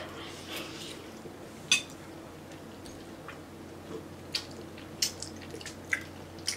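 Quiet eating sounds: long noodles being slurped off a fork, with a scattering of short wet mouth clicks and light taps, over a faint steady low hum.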